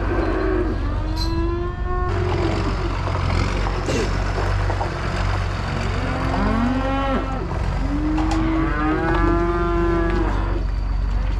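Calves bawling, several long calls in turn and sometimes overlapping, over the steady low running of a tractor engine reversing a livestock trailer.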